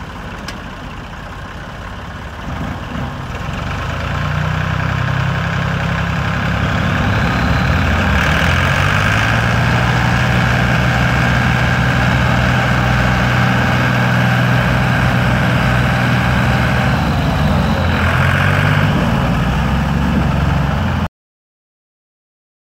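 Ford 3610 tractor's three-cylinder diesel engine revving up and labouring under heavy load, straining to drag a loaded sugarcane trolley through soft mud. It holds high revs for several seconds, then drops back, and cuts off abruptly near the end.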